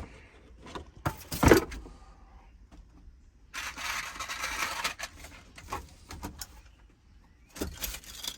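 Hand-work on interior truck trim while taking out its screws: a sharp knock about a second in, a noisy stretch of about a second and a half near the middle, and a few scattered clicks of tools and small metal parts.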